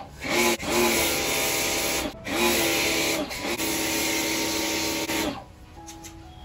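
Bosch Aquatak 125 electric pressure washer's motor and pump humming, with the hiss of snow foam spraying from an MJJC foam lance. It runs in four bursts with brief breaks as the gun's trigger is squeezed and released, and stops about five seconds in.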